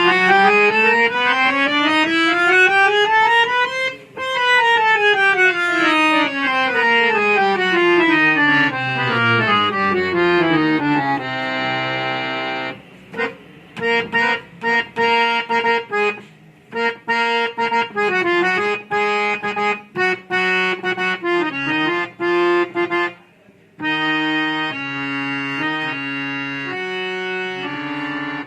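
Reed harmonium with all three reed sets (bass, female and male) on, played key by key up the whole keyboard for about four seconds and back down for about seven. After that come a held chord and a short tune of separate notes with brief gaps between them.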